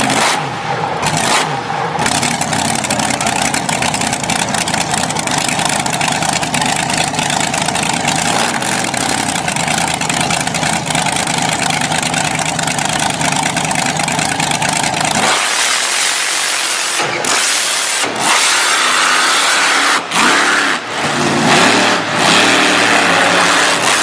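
Wheelstander drag truck's engine running loudly at a steady idle through its upright exhaust stacks. About 15 seconds in the sound cuts abruptly to harsher engine noise with rising and falling pitch as the truck is driven hard on the strip.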